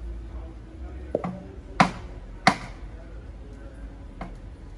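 Sharp knocks of blows on a wooden pallet: a few lighter strikes, then two loud ones close together near the middle.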